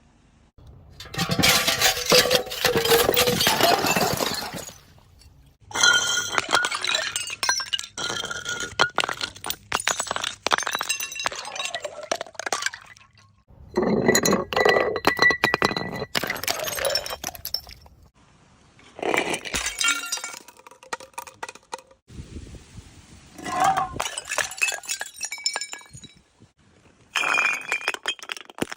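Glass bottles clinking and shattering in a series of separate bursts of clatter, about six in all, with short pauses between them.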